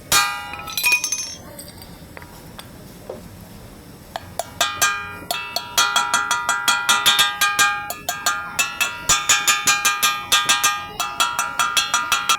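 Steel hammer blows ringing on metal parts, a few single strikes and then a fast run of about three or four blows a second, the kind of hammering used to drive a wheel bearing or hub into place.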